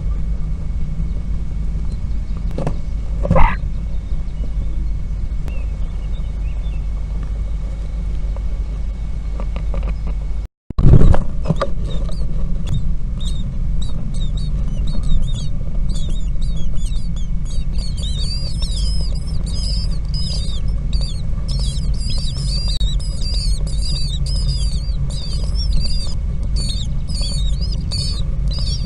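A low steady rumble with one knock about three seconds in. Then, after a short break, common starling nestlings begging: many short, high calls that grow denser and keep going.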